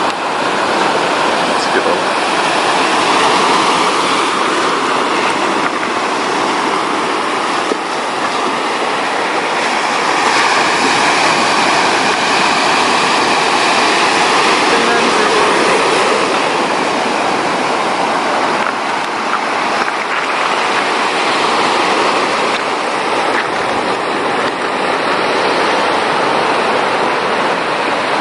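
Steady, loud rush of moving water, even and unbroken.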